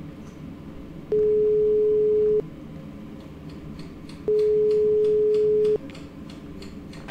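Telephone ringback tone as a call rings unanswered before going to voicemail: a single steady mid-pitched beep about a second and a half long, heard twice with roughly two seconds between.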